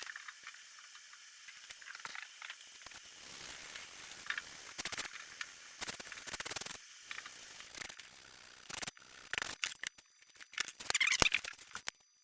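Irregular scraping and rubbing strokes on a foam-core blade being shaped by hand, with several short, sharper strokes, the loudest near the end.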